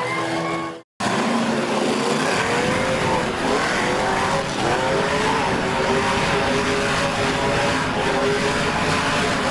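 A monster truck's engine revving hard and holding at high revs while the truck spins donuts, with tyre noise underneath. The pitch climbs over the first few seconds and then stays high and steady. The sound cuts out for a moment about a second in.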